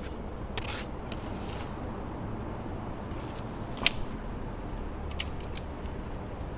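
Scattered short clicks and crackles, one sharper click about four seconds in, over a steady low rumble.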